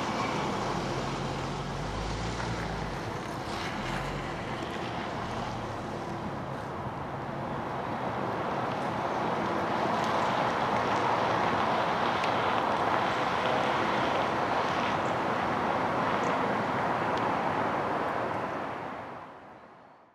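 Double-stack container train's well cars rolling past: a steady rumble and clatter of steel wheels on rail that grows louder midway and fades out near the end.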